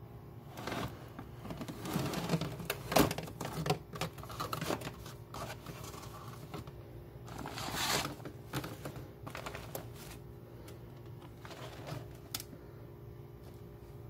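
Plastic parts of a vintage GE bonnet hair dryer clicking and knocking as it is handled and packed into its hard case, with the fabric bonnet rustling as it is stuffed in around the middle. A faint steady hum sits underneath.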